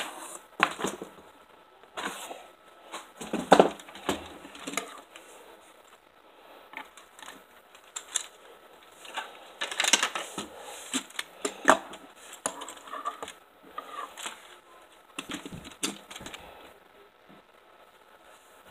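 Lego Technic car model being handled and turned over in the hands: irregular plastic clicks, knocks and rattles of its parts, a few louder knocks among them.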